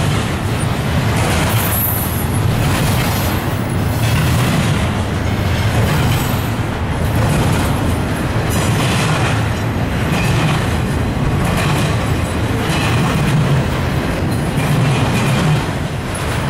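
Intermodal freight train's cars rolling past, double-stack container cars and trailer-carrying flatcars: a steady rumble of steel wheels on rail, with a brighter swell of noise every second or two.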